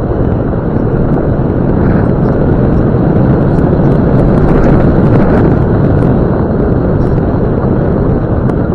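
Land Rover Discovery 2 driving on a gravel road: loud, steady rumble of tyres on gravel and road noise, with scattered small ticks.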